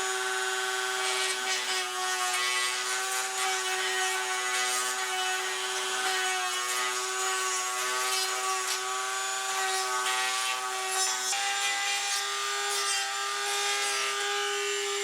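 Dremel rotary tool running at a steady high speed, its bit grinding away plastic to free a binding beater bar in a vacuum cleaner's brush housing. A constant motor whine sits under the scraping of the bit.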